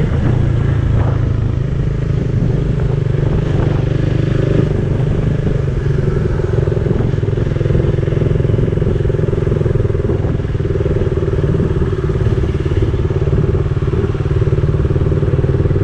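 Motorcycle engine running at a steady pitch while riding at an even cruising speed, heard from on the rider's own bike, with road and wind noise mixed in.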